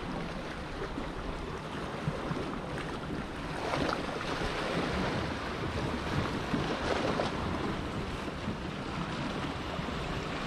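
Sea water washing and lapping against shore rocks, with wind buffeting the microphone.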